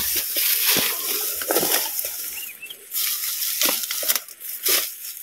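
Rustling and crunching of grass and brush in short, irregular bursts, with a few crisp snaps and a faint high chirp near the middle.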